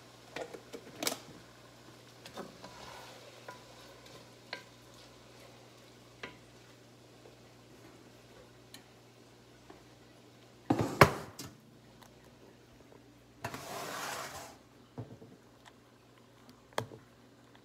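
Kitchen handling sounds around a cooking pot: scattered knocks and clinks of a wooden spoon and cookware, a louder clatter just past the middle, and about a second of hissing rush soon after. A faint steady hum runs underneath.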